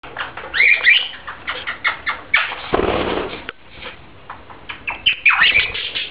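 Pet budgerigars chirping and warbling in quick, sharp rising notes, with a brief rushing noise about three seconds in.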